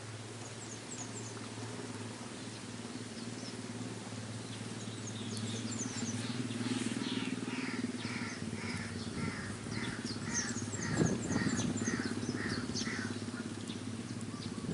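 Birds calling: a run of short repeated notes, about two a second, begins near the middle, with thin high chirps above them. A steady low hum runs underneath.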